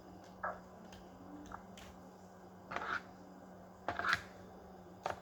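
A handful of short, scattered computer keyboard and mouse clicks over a faint steady electrical hum.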